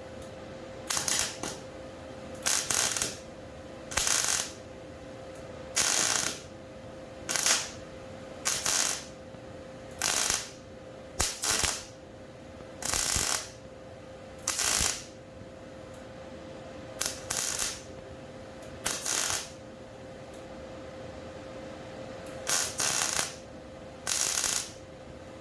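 Hand ratchet wrench worked in short strokes: brief bursts of rapid clicking come every one to two seconds, with a few longer pauses between them.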